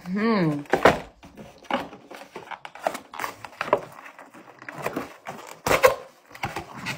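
A cardboard pizza box being handled and opened: scattered knocks, scrapes and crinkling of cardboard and paper, with one louder thump near the end. A short hum of voice sounds at the very start.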